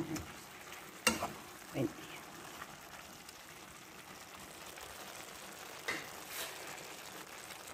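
Chicken adobo in soy sauce and vinegar sizzling faintly and steadily in a frying pan, with one sharp clink of the stirring fork against the pan about a second in.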